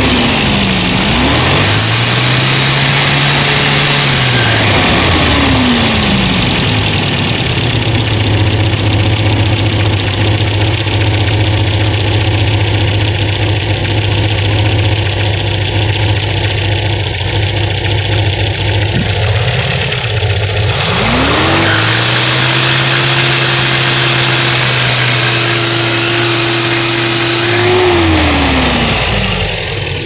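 1970 Opel GT's four-cylinder engine revved up twice from idle, held high for a few seconds each time and let fall back. While the revs are held there is a loud roar and a high screech, and a whirring as the revs drop. It is a newly begun noise that the owner cannot trace, after a new 7-blade fan, alternator and water pump were fitted.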